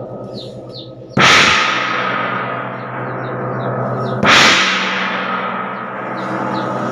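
Monel Chinese gong struck twice with a padded mallet, about three seconds apart. Each stroke gives a sudden bright crash that settles into a long, slowly fading ring of many steady tones, still ringing between and after the strokes.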